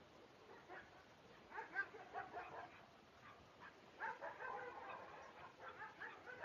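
Faint animal calls: clusters of short, rapid notes, one burst starting about one and a half seconds in and a longer one from about four seconds in.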